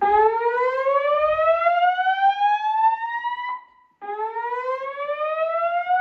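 Wheelock fire alarm speaker strobes sounding a slow whoop evacuation tone: a rising sweep lasting about three and a half seconds, a brief break, then a second sweep starting about four seconds in.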